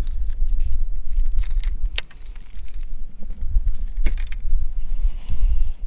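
Baitcasting rod and reel being handled: a few sharp clicks and light metallic rattling, over a steady low rumble of wind on the microphone.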